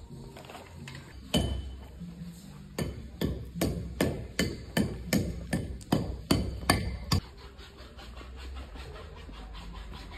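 Hammer blows on a building site: one strike about a second and a half in, then a run of about a dozen strikes at two to three a second, which stops about two-thirds of the way through.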